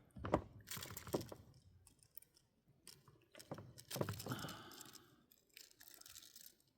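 Faint, scattered clicking and rustling from a small bass and its jerkbait's treble hooks being handled after landing.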